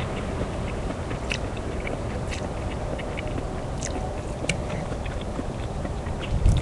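A man eating ramen noodles: chewing and scattered small clicks, over a steady low rumbling background noise.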